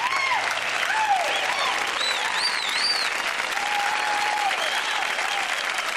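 Audience applauding and cheering, with scattered whoops and a high, two-part whistle about two and a half seconds in.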